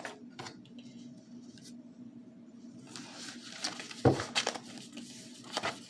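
Tarot cards being handled on a table: scattered soft clicks and a brief brushing sound of cards sliding, with a sharper tap about four seconds in.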